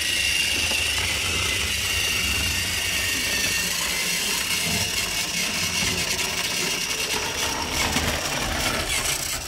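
Battery-powered Trackmaster Thomas toy engine running along its plastic track: a steady motor-and-gear whir with a thin high whine and a low rumble.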